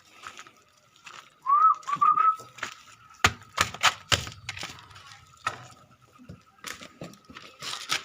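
A person whistling a short wavering call to a pet puppy about a second and a half in, followed by a run of sharp clicks, with a faint steady high tone underneath.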